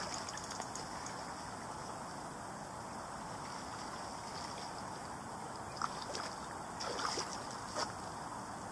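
Lakeside outdoor ambience: a steady hiss of wind and moving water at the bank, with a few brief sharp sounds about six to eight seconds in.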